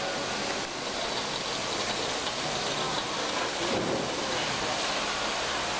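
Steady hissing noise of a brewery keg line: machinery and air running without a break.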